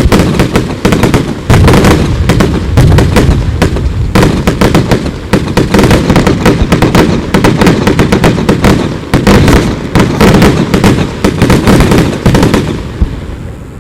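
Fireworks going off in a dense, rapid barrage of bangs, many per second, dying away near the end.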